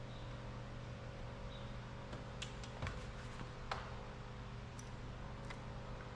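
A handful of short, sharp clicks and taps from tools and door parts being handled, the loudest two about three and four seconds in, over a steady low hum.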